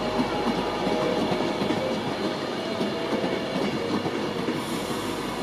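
Class 390 Pendolino electric train running past on the rails, a steady wheel-on-rail rumble.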